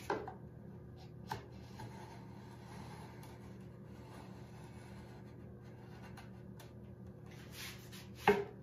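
Quiet workshop hum with a few knocks from handling a wooden bookshelf carcass: one just at the start, a small click soon after, and a short scrape followed by a sharp knock near the end.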